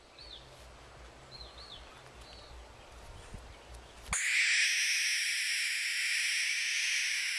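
Young barn owl giving a long, loud, harsh hiss-screech, its defensive call when disturbed and unhappy, starting suddenly about four seconds in and held steady. Before it, a quieter stretch with a few faint high chirps.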